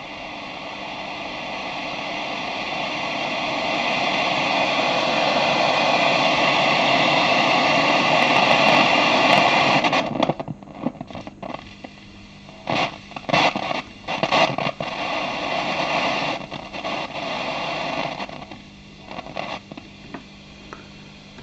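Valve radio's loudspeaker giving out a steady static hiss as the set comes up on power, growing louder over the first several seconds while its high-tension voltage climbs. About ten seconds in, the even hiss breaks up into irregular crackles and short snatches of sound.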